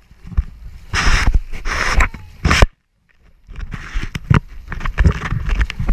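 Lake water splashing against the hulls of a Hobie Tandem Island sailing trimaran under way, mixed with wind buffeting the camera microphone, in irregular loud gusts. The sound drops out almost completely for about a second midway.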